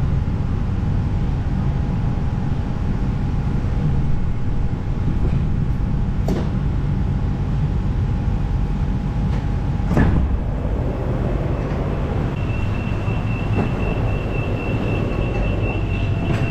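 Interior of a Bangkok MRT Yellow Line monorail car pulling into a station: a steady low running rumble with a steady whine from the drive that ends about ten seconds in as the train comes to a stop, with a knock at about six seconds and another at the stop. A steady high tone sounds for the last few seconds.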